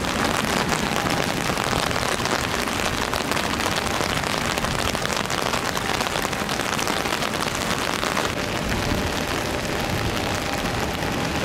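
Heavy rain falling steadily, with the drops striking an umbrella held over the microphone as a dense, even patter of small hits.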